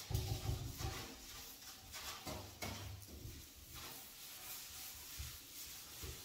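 Glass shower door being scrubbed with a sponge in a rubber-gloved hand: irregular rubbing and scrubbing strokes on the glass, with a few dull knocks as the door is handled.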